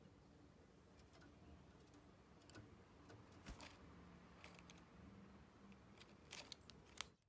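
Near silence with faint, scattered clicks and ticks, a few tiny high chirps, and a sharper click near the end.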